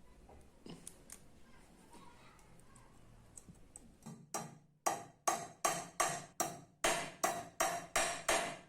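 Faint clicks, then from about four seconds in a run of about a dozen rhythmic scraping strokes, roughly three a second, each starting sharply and fading quickly.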